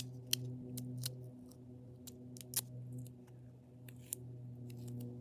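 Scissors snipping and strips of tape being handled, heard as a series of irregular short, sharp clicks, while the shield's cracks are taped over. A steady low hum runs underneath.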